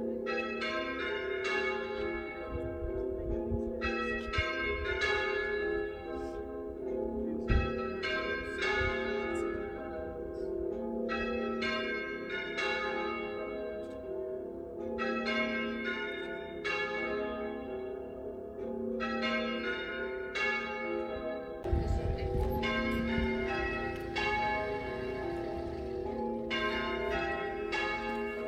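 Church bells ringing changes: a steady run of quick, overlapping strikes, each ringing on into the next, in rows with short breaks between. A single thump sounds about seven seconds in.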